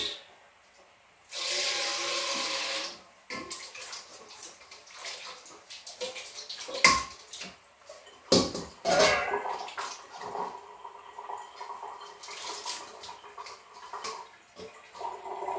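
Water pouring for about two seconds, starting about a second in, followed by scattered knocks and clatter of kitchen utensils.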